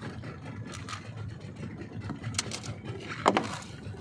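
Small fishing boat's engine running low and steady, with a few knocks on the hull or deck and one louder thud about three seconds in.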